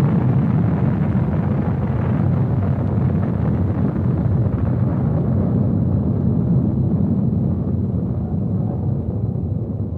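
A deep rumbling sound effect from a radio jingle, slowly dying away as its hiss fades.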